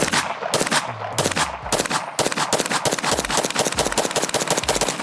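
Rapid gunfire from a Staccato pistol and an MP5 submachine gun. Uneven shots for about two seconds, then a fast, even string of about eight shots a second.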